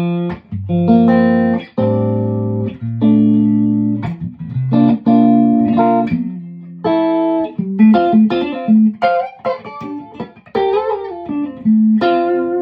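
Tom Anderson Classic electric guitar played through an amp on its neck and middle SC stacked single-coil pickups, with the VA booster off: a run of picked chords and single notes, each struck sharply and left to ring briefly.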